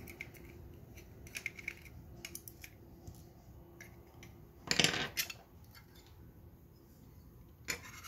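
Small screwdriver turning the tiny screws of an aluminium M.2 NVMe SSD enclosure: light metallic ticks and scrapes, with a louder metal clatter about halfway through and another sharp click near the end.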